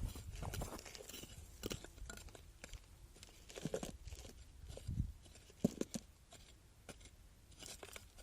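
Scattered, irregular crunches and scrapes of stony soil being dug and handled while filling bags, with a few soft low thumps.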